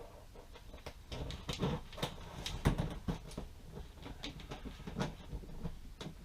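Light irregular clicks, ticks and rustles of thin galvanized wire rope being handled and pulled out to length.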